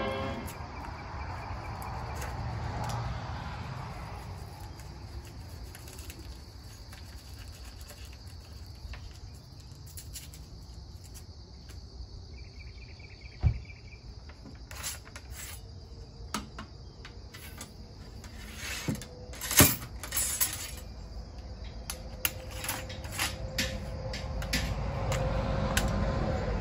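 A muzzle-loading rifle musket being loaded: scattered metallic clicks and clinks of the steel ramrod and lock, with two louder knocks about halfway through and a run of small clicks near the end. A steady chirring of insects runs underneath.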